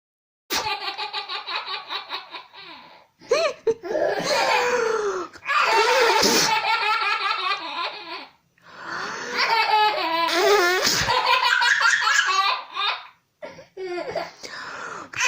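Baby boy laughing hard in several long bouts, with short breaks between them, at noises made with a balloon.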